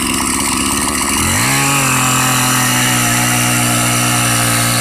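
A two-stroke chainsaw idling, then opened up about a second in, its pitch climbing fast and then holding steady at full throttle.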